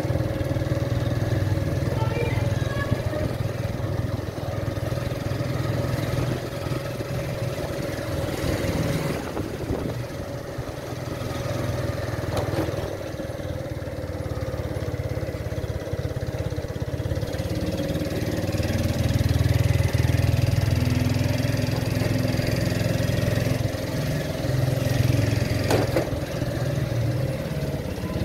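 Small motorbike engine running steadily at low speed, with a couple of brief knocks along the way.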